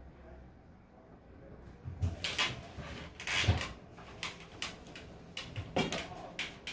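Irregular knocks and clatters of objects being handled, starting about two seconds in, with the loudest knock about a second and a half later.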